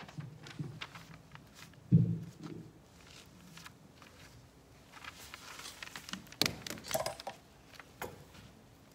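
Handling noise as a microphone stand is moved and adjusted: scattered knocks and clicks, with one loud thump about two seconds in. More knocks follow as an acoustic guitar is picked up.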